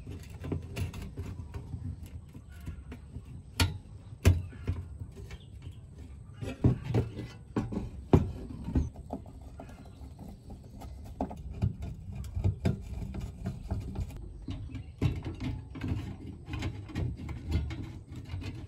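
Irregular clicks and knocks of metal parts being handled and fitted as an amplifier's heatsink and circuit board go into its sheet-metal chassis, with a screwdriver at work. A few louder single knocks stand out, around four seconds in and again about eight seconds in.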